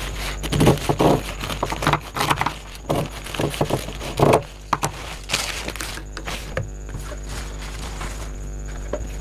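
Nylon bag panel being handled and shifted on a sewing table: irregular rustles and knocks for the first several seconds, then only a steady low hum with a faint high tone.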